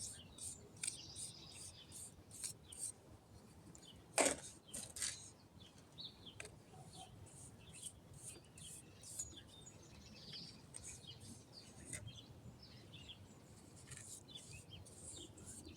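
Repeated short scraping strokes as wet concrete is worked onto a concrete fountain bowl, with one louder knock about four seconds in. Birds chirp in the background.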